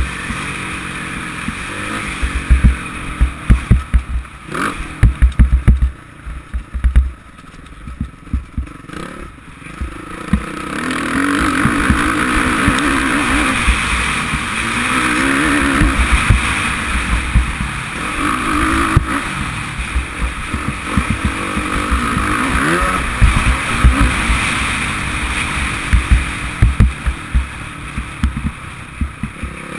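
Suzuki RM-Z450 four-stroke single-cylinder motocross bike being ridden hard over a rough dirt track, heard from a helmet camera. Its engine revs rise and fall with the throttle, over wind buffeting and frequent low thumps on the microphone. The engine drops back for a few seconds about six seconds in, then pulls hard again.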